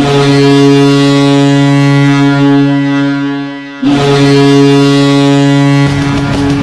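Ice hockey arena goal horn, the signal that a goal has been scored: two long, steady, low blasts, the first about three and a half seconds and the second about two. Near the end the goal song starts with loud rock music.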